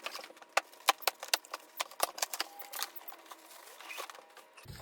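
Cardboard shipping box being cut and opened: a rapid, irregular string of sharp crackles and clicks, about four a second.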